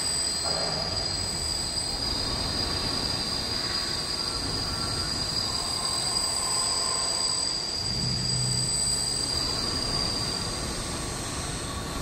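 Pipe welding turning roll with helical gear drive running, its rollers turning a pipe with a steady high-pitched whine and squeal over mechanical noise. A deeper hum swells briefly about two-thirds of the way through.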